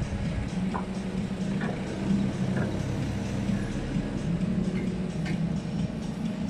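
A steady low mechanical hum with a few faint clicks over it.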